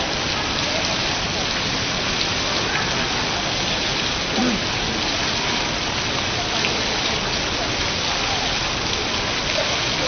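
Falling water from a computer-controlled waterfall display, a steady rain-like patter and hiss at an even level.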